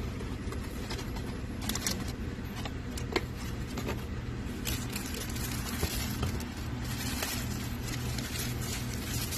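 Plastic bubble-wrap packaging crinkling and rustling as a tablet is pulled out of it, with scattered clicks and taps of the box and accessories. The crinkling is denser from about halfway through. A steady low background rumble runs underneath.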